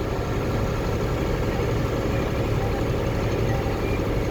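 Tractor engine running steadily under load while pulling a round baler that is forming a bale, heard from inside the tractor cab.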